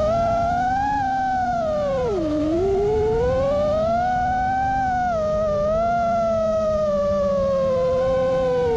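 5-inch FPV quadcopter's brushless motors and propellers whining, the pitch swinging up and down with throttle: it drops sharply about two seconds in, then climbs back and eases down slowly.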